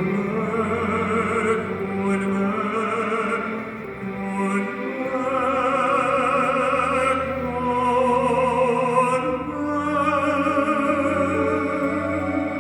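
Slow, operatic-style music: a lead line of long held notes with vibrato over sustained lower backing.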